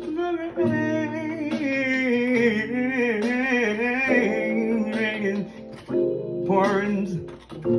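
A man singing long, bending, wavering notes with no clear words over instrumental accompaniment, dipping briefly near the end.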